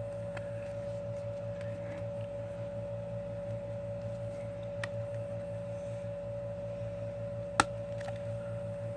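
Steady background hum with a constant tone, and a few light clicks of a plastic CD case being handled while its shrink wrap is picked at; one sharper click comes near the end.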